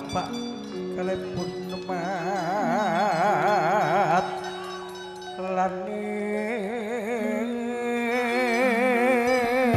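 Live music: a singer holding long, wavering notes with strong vibrato over steady, ringing instrument tones. The voice drops away briefly about halfway through, then comes back.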